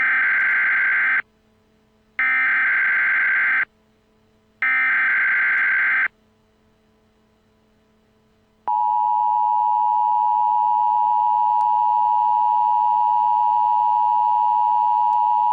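Emergency Alert System tones: three short bursts of the SAME digital header, each about a second long. After a pause of a few seconds, the steady two-tone EAS attention signal starts about nine seconds in and holds.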